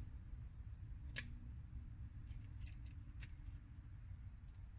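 Small pieces of fire-lighting kit being handled: light clicks and clinks, one sharper click about a second in, over a low steady rumble.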